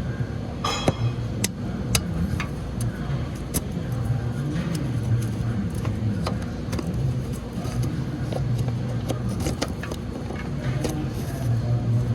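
A steady low hum with scattered short clicks and light metallic clinks, the sort made while handling a wiring connector and test tools under a vehicle.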